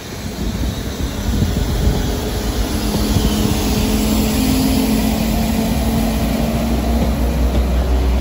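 Transport for Wales Class 197 diesel multiple unit moving past along the platform, its underfloor diesel engines giving a steady drone over the noise of the wheels on the rails. The engine tone comes up about a third of the way in.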